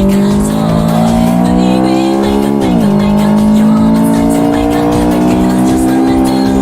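Car engine pulling hard at high revs, its pitch climbing steadily. It drops suddenly about three seconds in, as at a gear change, then climbs again.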